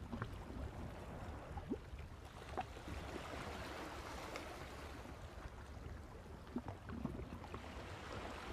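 Faint water ambience at a shore: an even hiss of gently washing water, with a few soft ticks.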